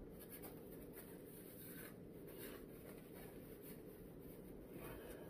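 Faint scratching and rustling, a handful of soft strokes, as chicken is handled in a takeout container, over a low room hum.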